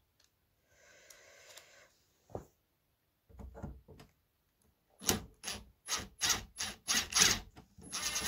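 Cordless drill with a screwdriver bit, triggered in a string of short bursts against a screw in a metal case, then run a little longer at the end.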